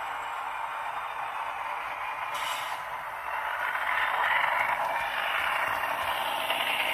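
HO-scale ScaleTrains ET44AC model locomotive running at high throttle, its ESU LokSound decoder playing GE diesel engine sound through a small onboard speaker, mixed with the rolling noise of its wheels on the track. The sound gets louder about three seconds in as the locomotive runs close by.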